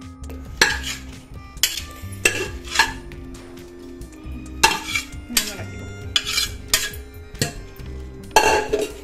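A stainless-steel serving spoon scraping and clinking against a steel pot and bowl as cooked rice is scooped from one into the other. About a dozen irregular metallic knocks and scrapes, the loudest near the end.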